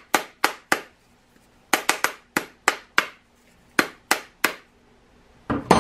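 Sharp taps on a hard plastic 3D-printed bath bomb mold packed with bath bomb mix, in quick runs of three or four, about fifteen in all.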